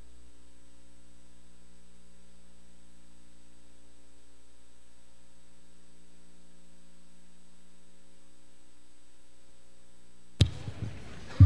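Steady electrical hum from the hall's microphone and sound system, a low buzz of several even tones. About ten seconds in, a sharp click followed by thumps as the podium microphone is switched on and handled.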